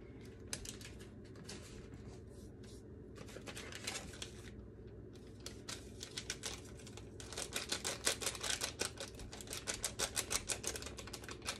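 Small plastic food packets handled over a mixing bowl: a plastic bag of panko crumbs tipped out, then a seasoning packet fiddled with and shaken. This gives quick, light clicking and crinkling that comes thickest near the end.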